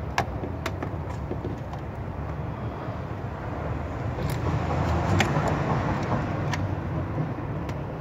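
Scattered sharp clicks and taps of a screwdriver and hands working among metal parts and wiring, with a busier stretch of handling noise around the middle, over a steady low rumble.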